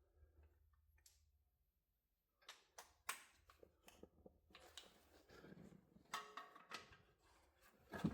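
Near silence with a low hum of room tone. From about two and a half seconds in come scattered faint clicks and knocks, typical of tools and metal parts being handled during suspension work.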